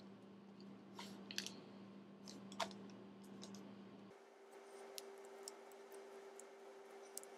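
Faint handling of soft clay on a cloth-covered table, with a few small sharp clicks and taps, loudest in the first three seconds. Under it runs a steady low hum that jumps higher in pitch about four seconds in.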